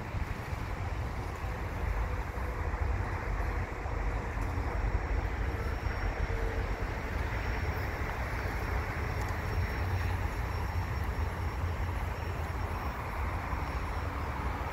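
Double-stack container well cars of a freight train rolling slowly past: a steady rumble and clatter of wheels on the rails.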